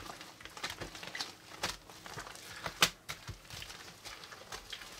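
Hands kneading and pulling apart a large mass of slime mixed with bead-filled floam: irregular wet squishes and crackles, with one sharper pop about three seconds in.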